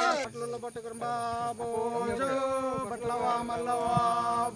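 Men's voices chanting in held, sung notes that step in pitch. A shaken rattle cuts off just as it begins.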